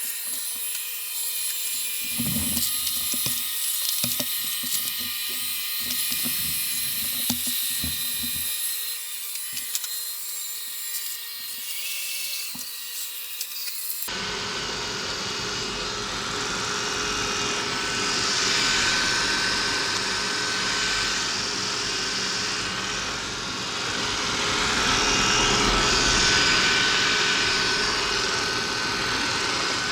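Roborock S4 Max robot vacuum cleaning: a steady high-pitched motor whine with scattered low knocks. About halfway through the sound changes abruptly to a fuller, deeper rush with a steady whine.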